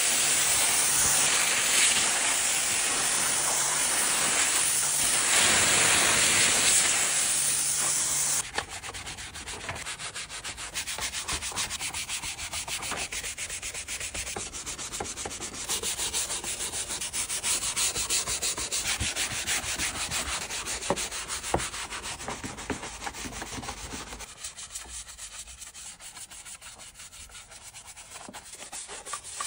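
Pressure washer jet spraying water in a loud, steady hiss that stops abruptly about eight seconds in. After that, a stiff scrub brush rubs back and forth over foamed plastic car interior trim in a fast, rasping scrubbing.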